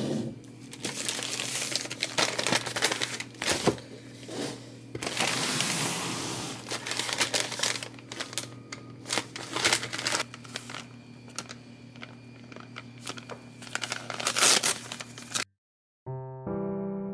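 Packaging crinkling and tearing in irregular rustling bursts as a parcel is unwrapped by hand, over a faint steady hum. It stops abruptly about fifteen seconds in, and soft piano music starts near the end.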